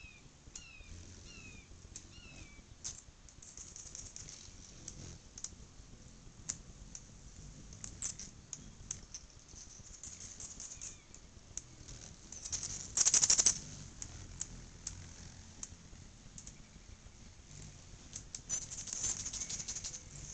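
Anna's hummingbirds at nectar feeders: a steady scatter of sharp, high chip notes and ticks, with a loud buzzy chattering burst about two-thirds of the way through and a longer rasping chatter near the end.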